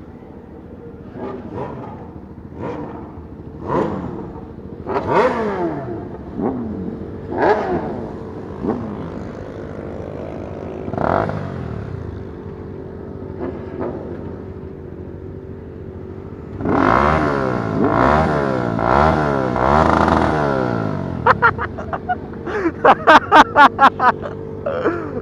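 Several sport motorcycles revving their engines over and over, the pitch sweeping up and falling back, with a few revs overlapping heavily in the last third. Near the end comes a quick string of about a dozen loud exhaust pops in about three seconds.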